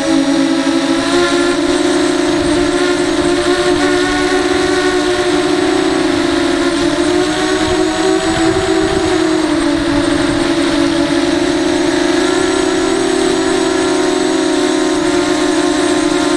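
Brushless motors and 5-inch bullnose propellers of a ZMR racing quadcopter whining steadily in flight, heard close up from the camera on board. The pitch drifts up and down with throttle, rising about halfway through and settling back a second or so later.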